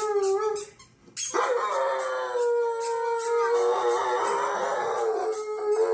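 German shepherd howling: a long held howl breaks off, and after a short pause a second, slightly higher howl starts about a second in and is held steadily.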